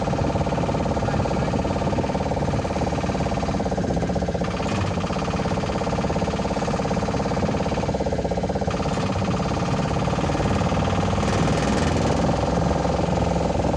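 Vehicle engine running steadily with road and wind noise, heard from inside the cabin of the moving vehicle with the side window open.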